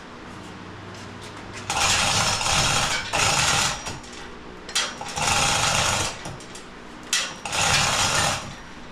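A handheld power tool, such as one used to run shop bolts, runs in three bursts of about a second and a half each, over a steady low hum.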